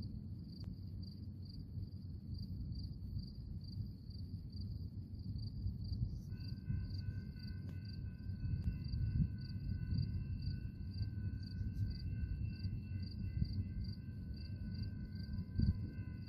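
Crickets chirping in a steady, even pulse, over a constant low rumble; about six seconds in, a few steady held tones join in.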